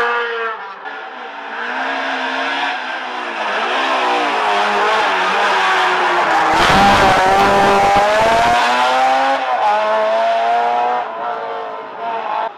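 Ford Escort Kit Car rally car racing uphill, its engine revving hard and rising and falling in pitch through repeated gear changes. It passes close and is loudest about seven seconds in, then fades away up the road.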